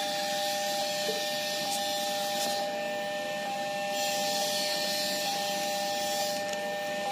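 Railway level-crossing warning alarm sounding: several high electronic tones held steady without change, over a constant background hiss.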